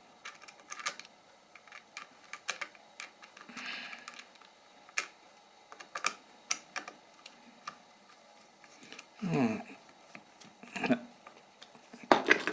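Light, irregular clicks and taps of small plastic parts of a wind-up radio being handled. Near the end come three short, louder grating sounds that fall in pitch, as the wind-up generator's gearing is turned by hand and feels easier to turn.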